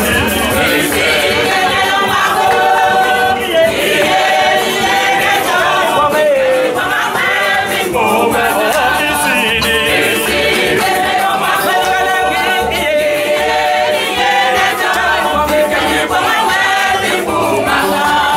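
Church choir of men and women singing together.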